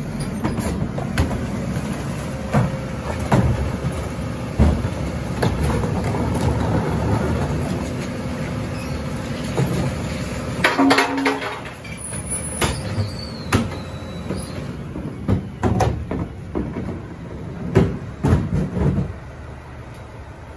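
Rear-loader garbage truck at work, its diesel engine running under a steady whine for several seconds while the packer hydraulics cycle. Repeated clangs and bangs of metal run through it, the heaviest cluster about halfway through and another run of knocks near the end.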